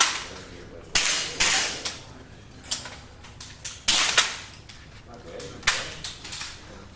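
Several air rifles firing one after another at an irregular pace, about eight sharp cracks, each with a short echoing tail.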